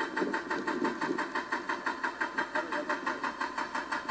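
Excavator at work: its engine running under a rapid, even mechanical clatter of about six or seven knocks a second.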